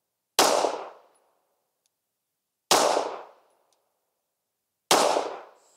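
Three 9mm pistol shots about two seconds apart from a Sig Sauer P320 X-Five firing Federal American Eagle 147-grain FMJ rounds, which the chronograph clocks just over 1,000 fps. Each is a sharp crack that dies away within about half a second.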